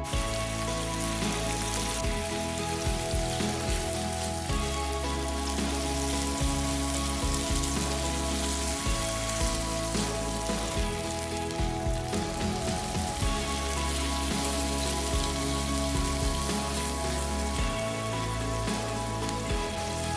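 Meatballs and chopped tomatoes sizzling in oil in a frying pan as they are stirred with a spatula, a steady crackling hiss under background music.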